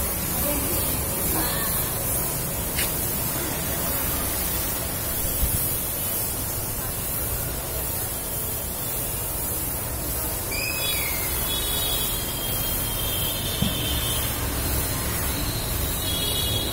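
Compressed-air paint spray gun hissing steadily as it sprays black paint, over a low background rumble.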